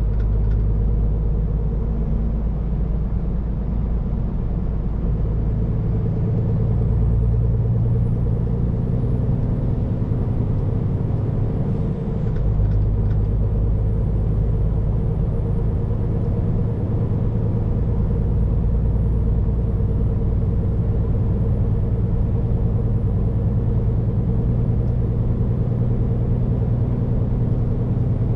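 Scania P410 truck's diesel engine and road noise heard inside the cab while driving, a steady low drone with a faint high whistle. The engine note rises about six seconds in and dips briefly about twelve seconds in, then holds steady.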